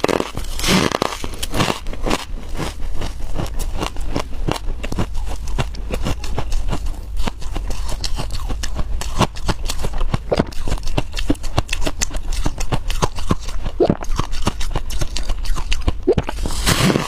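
Freezer frost being chewed close up: a dense run of small crackles and crunches, with louder crunches right at the start and near the end.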